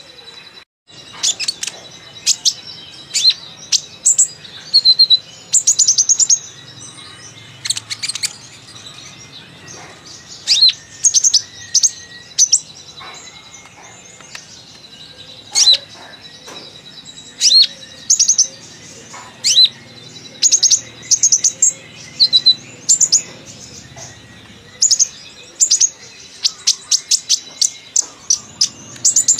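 A kolibri ninja sunbird singing busily: quick runs of thin, high chirps and twittering phrases in clusters with short pauses between them, the chattering song with its learned imitations that keepers call 'isian'. A faint steady high tone runs underneath.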